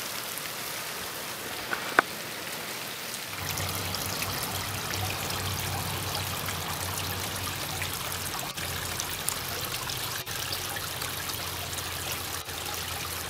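Rain falling on a garden pond's surface, with one sharp tick about two seconds in. About three seconds in it gives way to the steady splash and trickle of a tiered fountain spilling from bowl to bowl into the pond.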